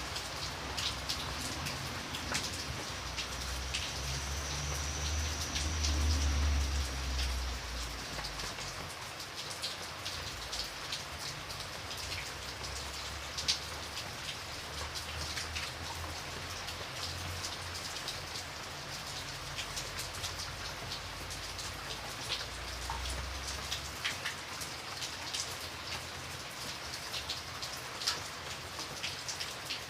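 Steady rain falling on a surface: an even hiss with many separate drops ticking sharply over it. A low rumble underneath swells for a few seconds about a fifth of the way in and again briefly later.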